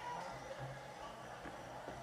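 Faint, quiet music with no clear beat.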